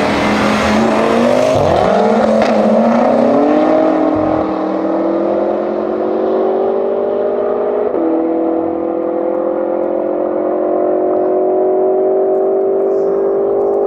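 Two high-powered cars running at full throttle, the BMW M6's tuned twin-turbo V8 together with an Audi RS6 Avant, engine notes climbing steadily as they accelerate. There is a quick upshift about eight seconds in, and the sound grows duller as the cars pull away.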